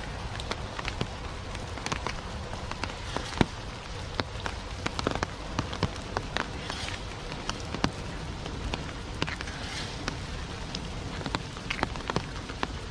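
Steady rain falling, with frequent sharp, irregular taps of drops landing close by.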